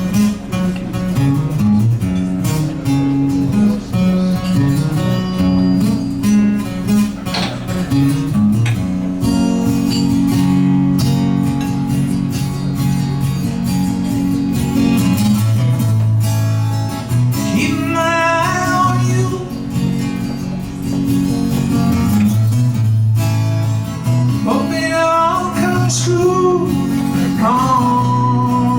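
Live acoustic guitar playing a song's instrumental intro, strummed and picked chords. In the second half a higher melody line with sliding, wavering notes comes in over the guitar.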